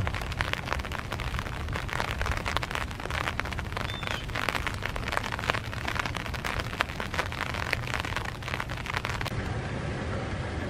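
Light rain falling, with many close raindrops ticking sharply in quick succession over a steady hiss; the close ticking thins out near the end.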